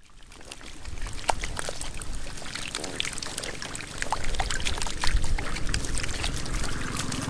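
Dozens of catfish thrashing in a shallow muddy puddle: a constant wet splashing with many sharp slaps and smacks. It fades in from silence at the start and grows louder about four seconds in.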